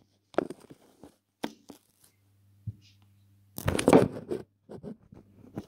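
Handling noise from the recording phone as it is shifted and held against the tank: a few scattered clicks and scrapes, and a louder rustling scrape about four seconds in, over a steady low hum.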